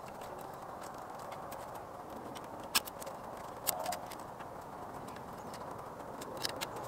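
Thin green twigs being worked and woven through a branch frame by hand: scattered clicks and light cracks of wood on wood, the sharpest about three seconds in, over a steady background noise.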